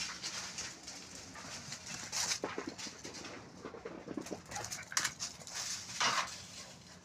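An animal's soft sounds: irregular breathy noise bursts with a few short, low calls about two and a half and four seconds in.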